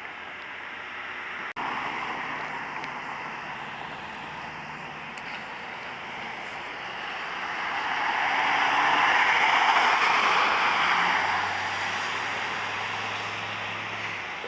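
Road and engine noise of a moving vehicle: a steady rush with a low engine hum. It swells louder about halfway through, then eases off again.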